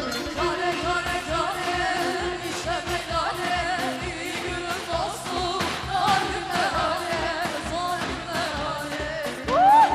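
Turkish pop-folk song sung live over a band with a steady, quick beat. Near the end a loud note slides up and is held.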